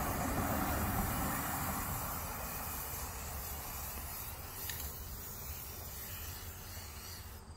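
Aerosol spray paint can from a new can spraying blue paint onto a lawn tractor side panel: one long continuous hiss that slowly fades and stops near the end.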